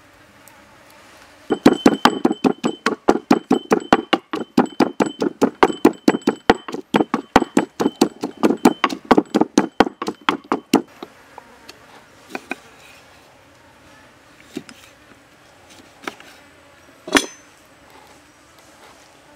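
Wooden pestle pounding garlic and fresh chilies in a wooden mortar: quick, even strokes, about five a second, that start about a second and a half in and stop after about nine seconds. A few scattered knocks follow, the loudest near the end.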